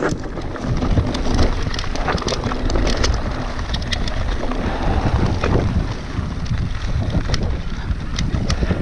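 Wind buffeting the microphone as a mountain bike rolls down a grassy dirt singletrack, with tyre noise over the ground and frequent sharp clicks and rattles from the bike.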